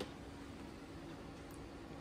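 Quiet room tone with a low steady hum, a single sharp click at the very start and a fainter tick about one and a half seconds in.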